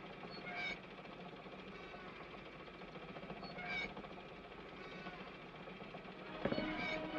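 Two short, high squeaks about three seconds apart from the jerking mechanical figures of a shop-window Christmas display, over old film-soundtrack hiss. Near the end a knock sounds and orchestral music comes in.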